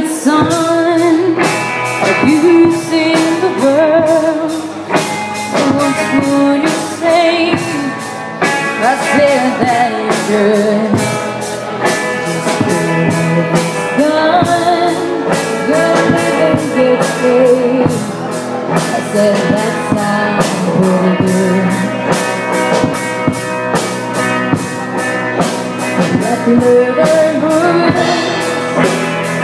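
Live rock band playing a song, with a female lead singer over electric guitar, bass guitar and a drum kit keeping a steady beat. The full band comes in all at once at the start.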